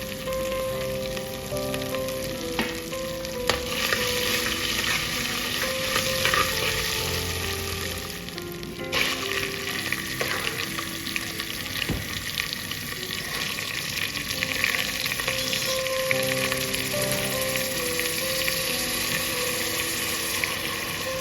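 Cumin seeds and ginger-garlic paste frying in hot oil and ghee, a steady sizzle with occasional scrapes and taps of the spoon being stirred in the pan.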